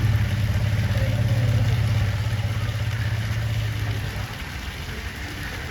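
Asian elephant making a low rumbling growl that sounds like a motorbike engine idling. It is a steady, deep, pulsing drone that fades out about four seconds in.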